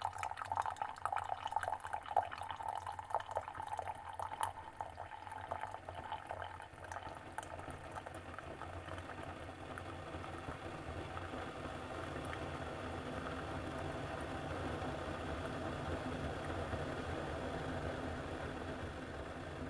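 Keurig single-serve coffee maker brewing: coffee sputters and drips into the cup with crackly gurgling for the first several seconds, then gives way to a steady hiss over a low mechanical hum.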